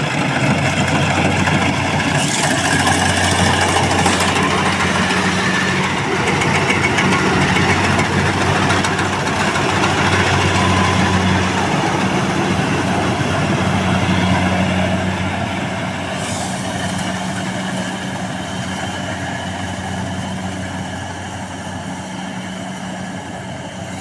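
Kubota DC-70 Plus rice combine harvester running as it cuts rice, its diesel engine and machinery giving a steady hum. It is loudest as it passes close by and grows fainter over the last several seconds as it moves away.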